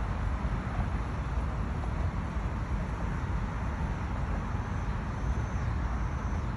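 Steady low rumble of a moving water taxi, its engine and the wind blowing past.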